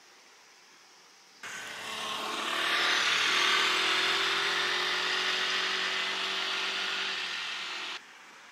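A road vehicle going by, its engine and tyre noise building to a peak and then slowly easing. It cuts in suddenly about a second and a half in and cuts off suddenly near the end.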